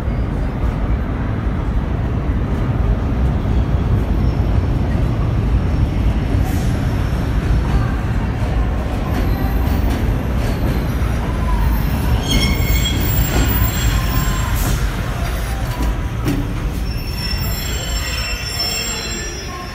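Vintage R1-9 subway train pulling into an underground station: a loud, steady rumble of steel wheels on the rails, with high squeals from the wheels and brakes in the second half as the train slows.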